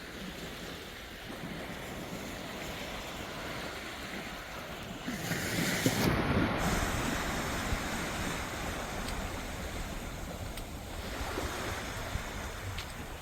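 Sea waves breaking and washing up on a beach, with a louder wave swelling in about five seconds in and another near the end.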